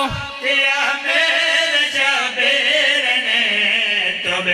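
Men's voices chanting a devotional qasida refrain together into microphones, with long, drawn-out held notes.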